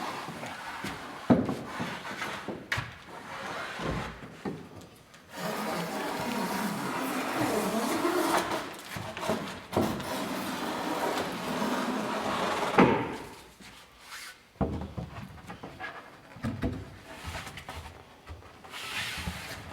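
Rabbet plane shaving a caulking bevel along the edge of a wooden plank: a long run of rasping strokes in the middle, with scattered knocks and shorter scrapes of the tool on the wood before and after.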